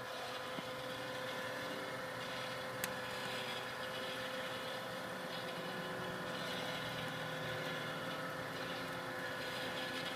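Coffee roaster running with a steady whir and hum, and a single sharp crack from a bean about three seconds in: first crack, the popcorn-like snap of individual beans.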